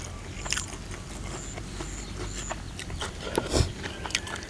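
Close-up chewing and lip-smacking of a man eating a mouthful of grilled catfish, with many small wet mouth clicks and a louder chew about three and a half seconds in.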